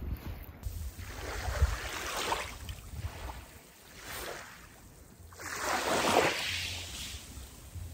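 Small waves washing in on a pebbly beach: two swells of surf, the louder one about six seconds in, with a low wind rumble on the microphone.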